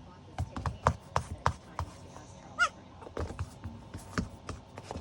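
A four-week-old goat kid gives one short, high-pitched bleat about halfway through, among irregular rustling and tapping sounds.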